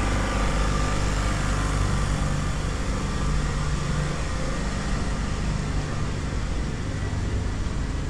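An engine running steadily, a low hum that holds even throughout.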